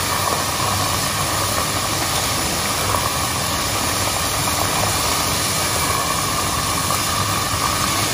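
Battered hon-shimeji mushrooms deep-frying in a pot of hot oil: a steady sizzling of furiously bubbling oil.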